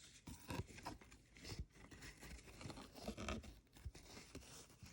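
Faint, irregular rustling and crinkling of paper being handled, as pages and a pocket of a handmade paper-and-fabric journal are touched and moved.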